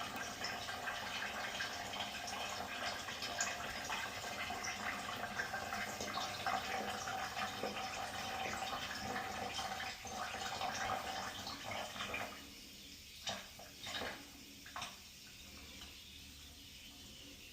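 Water running steadily from a tap, stopping abruptly about twelve seconds in, then a few short sounds.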